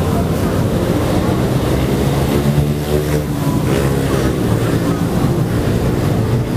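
Busy market crowd ambience: a steady low rumble with a low hum, under background crowd chatter and passers-by.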